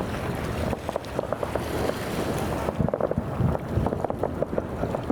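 Fireworks going off: irregular sharp crackles and pops with a few low booms, over steady wind noise on the microphone.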